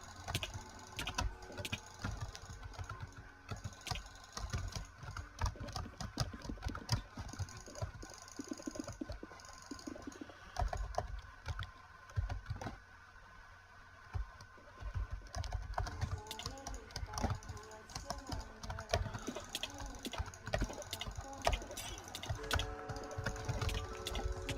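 Computer mouse buttons clicking, many sharp clicks at an irregular, often rapid pace.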